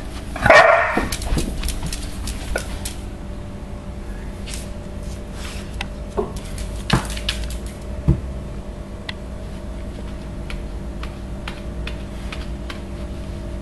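Dogs' claws clicking and tapping on a tiled floor as they scrabble over plush slippers, scattered sharp ticks throughout, with one short loud burst about half a second in. A steady low hum runs underneath.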